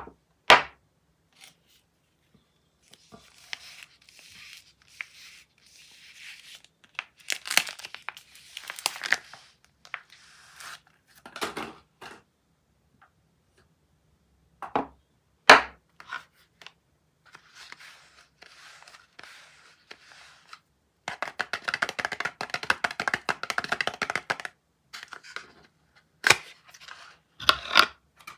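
Soap packaging being unwrapped by hand: wrappers tearing, rustling and crinkling, with a long run of rapid crackling in the second half. Several sharp taps or clicks come in between, as the packages and bars are handled and set down.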